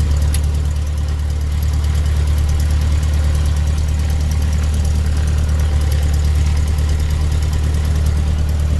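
Cessna 150L's four-cylinder Continental O-200 engine idling steadily just after a good start, heard inside the cabin as a loud, even low drone.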